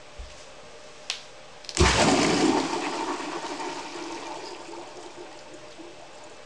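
Pressurised water and air from a hydrostatically tested water-rocket bottle venting through the launcher's abort valve into a bucket silencer: a sharp click about a second in, then a sudden loud gushing rush that fades away over about four seconds.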